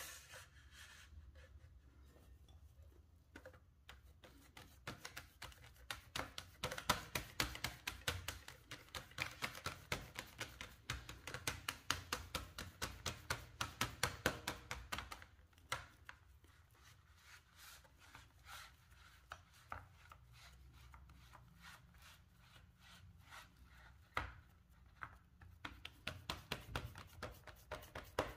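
Fingertips pressing and patting shortcrust dough into a fluted metal tart tin: a run of quick, soft taps and rubs, densest in the first half, thinning out, then picking up again near the end as the dough is pushed up the sides.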